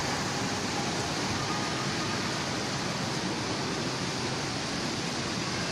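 Steady, even rushing noise of the ambience in a large indoor shopping-mall atrium, unchanging throughout.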